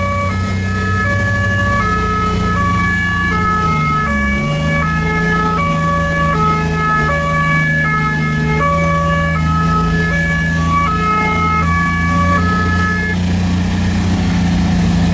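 German two-tone emergency siren (Martinshorn) on an all-terrain rescue vehicle, heard from inside the cab: two pitches alternating over and over, cutting off near the end. The vehicle's engine runs steadily underneath, with a brief dip about four seconds in.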